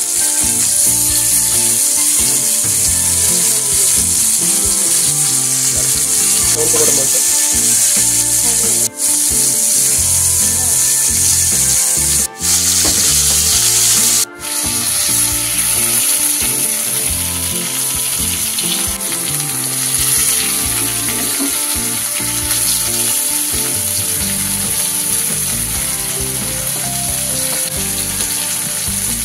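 Masala-coated fish frying in coconut oil on a tawa: a steady, loud sizzle, broken by three short drop-outs a few seconds apart.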